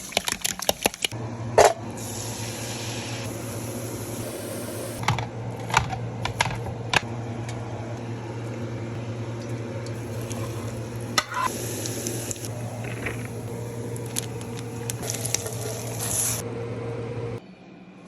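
Chicken fried rice frying in a hot pan, sizzling steadily, with a spatula clacking and scraping against the pan as it is stirred. Under it runs a steady low hum that starts about a second in and stops shortly before the end.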